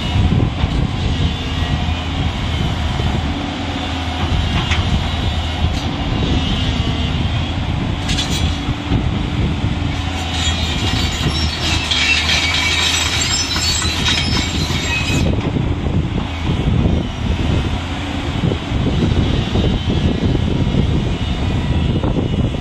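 JCB 215 LC crawler excavator travelling on its tracks: its diesel engine runs with a steady low drone, overlaid by the clatter and squeal of the steel tracks. A higher-pitched track squeal comes up about halfway through and lasts several seconds.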